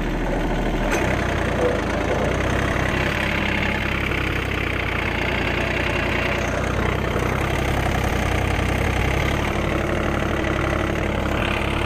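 Diesel engine of a John Deere mini tractor running steadily while it pulls a cultivator through the soil between banana plants.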